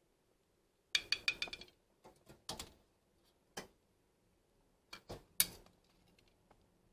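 A metal spoon clinking against an aluminium pot and a ceramic bowl while boiled eggs are scooped out and set into the bowl: a quick rattle of ringing clinks about a second in, then a few single knocks.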